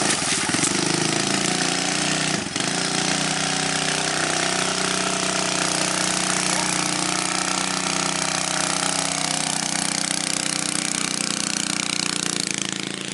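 Small dirt bike's engine running steadily with an even, rough note, dipping briefly about two and a half seconds in.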